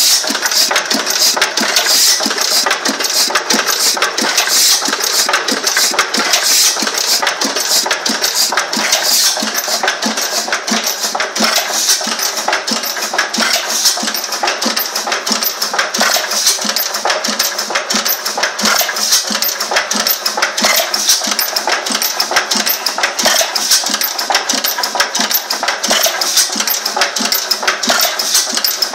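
Benz single-cylinder horizontal stationary engine running steadily, with a rapid, even knocking from its exposed crank.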